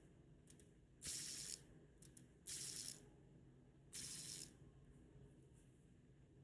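Copper and brass magnetic fidget ring flicked into a spin three times, each spin a half-second burst of quick ratchet-like clicking from the magnets inside it. A few faint single clicks come between the spins.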